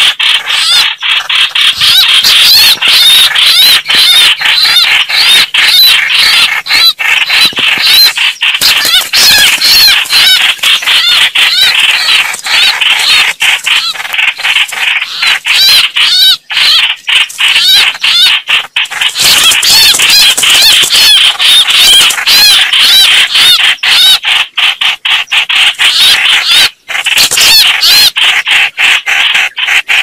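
Red-whiskered bulbuls calling in a fight: a loud, dense stream of rapid, wavering high notes that runs almost without pause, broken only by brief gaps.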